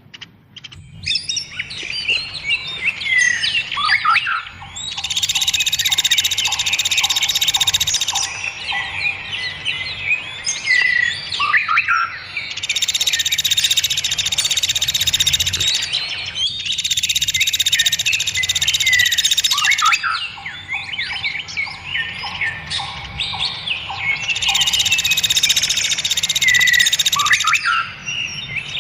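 Songbirds singing densely, a bird-song 'masteran' recording, with quick whistled and sliding notes. A loud buzzy trill lasting about three seconds returns four times.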